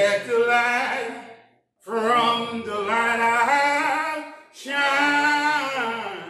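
A man singing a slow gospel hymn a cappella, drawing out long held notes in three phrases, with a short break about one and a half seconds in.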